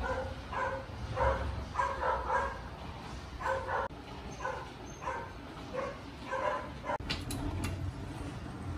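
A dog barking over and over, about two short barks a second, with a couple of sharp clicks about seven seconds in.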